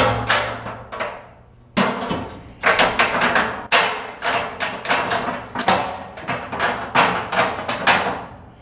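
Metal powder cans for 16-inch guns clanking and knocking against each other and the rack as they are shifted and pushed into place: a rapid, irregular run of knocks, with a short pause about a second in.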